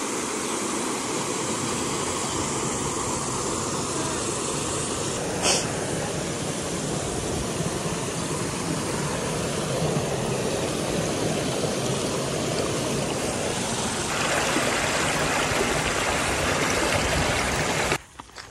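Stream water rushing steadily over a small rock cascade at the top of a waterfall, a little hissier from about fourteen seconds in, with one brief click about five seconds in. The sound cuts off abruptly near the end.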